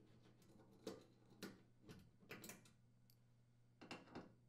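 Faint, light clicks and taps of a T20 Torx screwdriver on the screws and stainless steel top of a gas cooktop as the orifice-holder screws are backed out, a handful of ticks spread unevenly over a few seconds, over a low steady hum.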